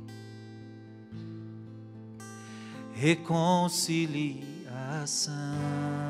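Slow Portuguese devotional song: held accompaniment chords, with a solo voice coming in about halfway on a long, wavering sung line.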